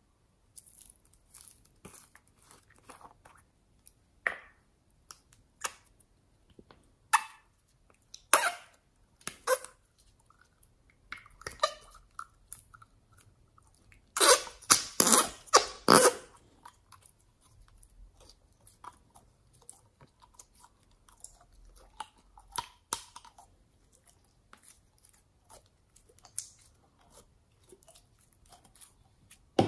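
Glossy slime squeezed out of a soft plastic container and handled, making irregular wet squelches and crackling pops, with a quick run of louder pops about halfway through.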